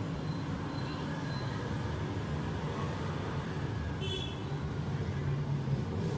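Steady low background hum, like distant traffic or machinery, with a brief high-pitched chirp about four seconds in.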